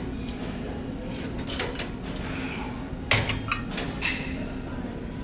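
Metal gym weights clanking, a few sharp knocks with the loudest about three seconds in.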